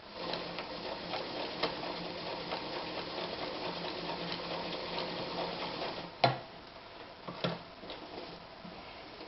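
Anker Phoenix Excelsior ZZ 151 sewing machine stitching a wide zigzag, running steadily with fast ticking for about six seconds and then stopping. Two sharp knocks follow, a little over a second apart.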